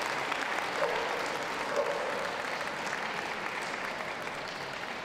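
Audience applauding steadily, slowly dying down.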